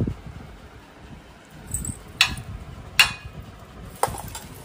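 Four short sharp metal clinks, the loudest about three seconds in with a brief ring, as a steel ladle knocks against a steel cooking pot, over low rustling handling noise.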